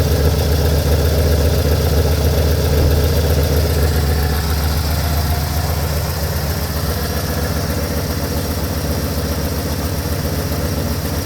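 1982 Mazda B2000 pickup's four-cylinder engine idling steadily. Its EGR valve has been repaired so that it no longer hangs open at idle.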